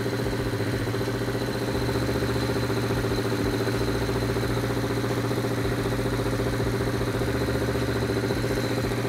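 Vintage Honda air-cooled inline-four motorcycle engine running steadily at a fast idle of about 2,000 rpm while its carburetor sync screw is turned to balance the vacuum between cylinders. The carbs are still slightly out of sync.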